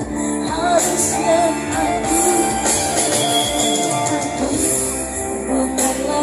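A woman singing into a microphone over amplified music, with a steady instrumental accompaniment under her voice.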